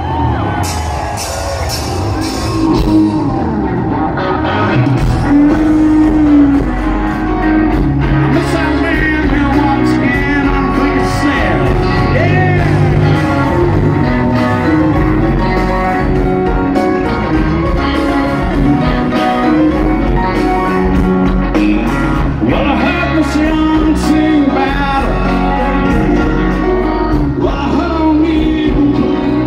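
Rock music played by a band, with a singer over guitar, loud and steady.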